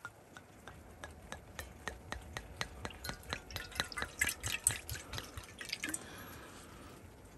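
A drink being poured into a glass: a run of drips that come faster and faster for about six seconds, then die away.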